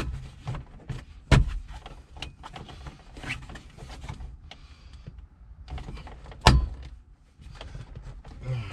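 Plastic overhead console trim of a Jeep Wrangler JK being handled and pressed up into the roof: rubbing and small clicks, with two sharp knocks about 1.5 s and 6.5 s in, as the trim is pushed into place until it snaps in without any trimming.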